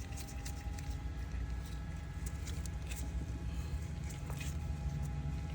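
Scattered light clicks and handling noises from hand work at the engine bay, over a steady low hum.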